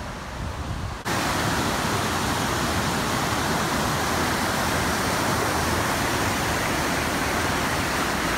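Rushing water of a river pouring over rocky cascades and a waterfall: a steady, even rush that cuts in abruptly about a second in, after a moment of quieter background noise.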